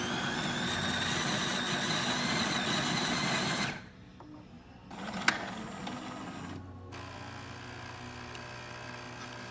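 Jura WE8 super-automatic espresso machine starting a shot: its built-in burr grinder runs loudly for nearly four seconds, its motor whine rising as it spins up, then stops. After a short pause a sharp click comes as the brewing unit moves, and the pump starts with a steady hum, brewing the espresso.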